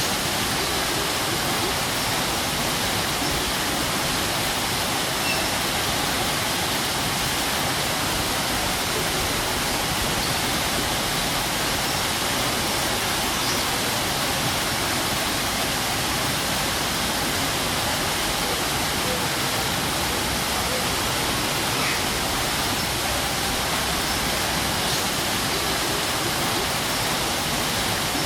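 Strong waterfall: a steady, even rush of falling water.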